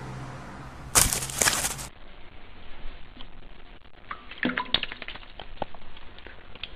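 A handgun fired about a second in: one loud, sharp shot with a short noisy tail. After it come scattered faint clicks and taps.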